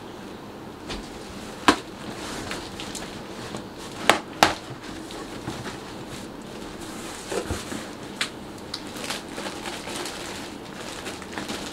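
Clear plastic packing and cardboard box rustling and crinkling as hands rummage inside the box, with a few sharp snaps: one about a second and a half in and two close together about four seconds in.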